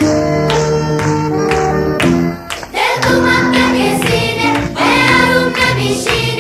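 Background music: instrumental notes at first, then singing voices come in a little under halfway through, after a brief dip.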